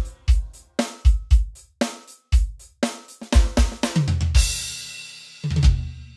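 Roland electronic drum kit played in a steady pop-rock beat, with hits about twice a second. About four seconds in the beat gives way to a crash cymbal. A final accented hit follows near the end, with a low sustained note under it fading out as the song ends.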